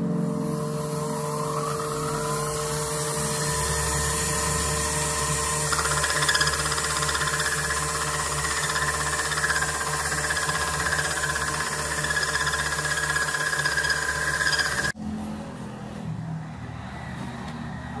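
Small benchtop metal lathe motor spinning up and running, turning a brass blank while it is cut in two, with a steady whir and a high hiss. Its pitch rises over the first couple of seconds, and the sound breaks off abruptly about fifteen seconds in, leaving a quieter stretch.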